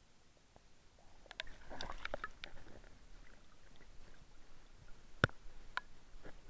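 Water splashing and sloshing for about a second and a half as a hooked bass is lifted by hand out of shallow water. About five seconds in comes a sharp click, the loudest sound, with two fainter clicks after it.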